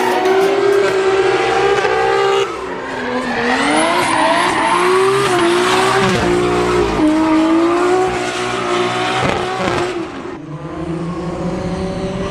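A car engine revving hard with tyre squeal, its pitch rising and falling several times.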